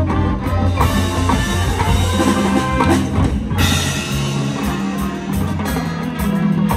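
High school marching band with its front-ensemble pit playing a field-show number: loud sustained chords over drums and mallet percussion.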